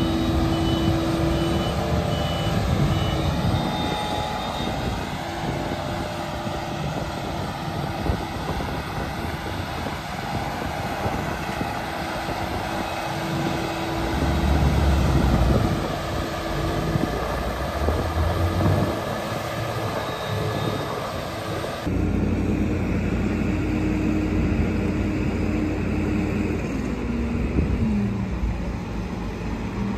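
Diesel machinery running steadily. In the latter part, wheel loaders are working a silage clamp, and one engine's pitch drops in a couple of steps as its revs fall near the end.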